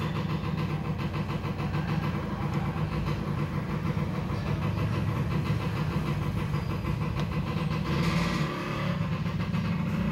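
Motorcycle engine of a tricycle (motorcycle with sidecar) running steadily with an even, rapid putter.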